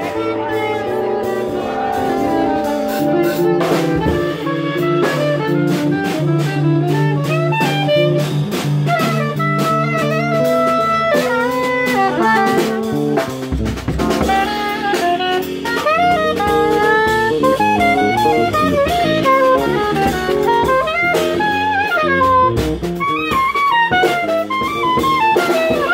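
Live jazz band in a bar: a saxophone plays a winding, bending melody over a drum kit, loudest and busiest in the second half.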